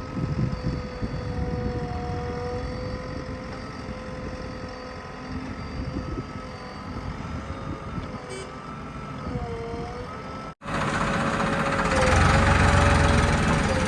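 JCB 3DX backhoe loader's diesel engine running, with a steady high whine over it. The sound cuts out for a moment about ten seconds in, then comes back louder.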